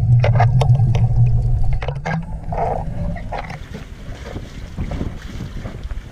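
Underwater splashing and bubbles with a low steady drone, loud at first. The drone drops away about two seconds in, leaving quieter wind and water noise.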